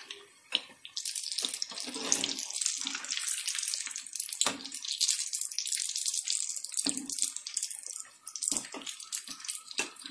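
Moong dal vadas deep-frying in hot oil, sizzling and crackling steadily from about a second in, with a few short knocks of the spoon against the pan as they are turned over.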